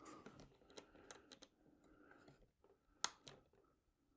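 Faint small clicks and rubbing from a clevis being turned by hand onto a threaded pushrod, with one sharper click about three seconds in.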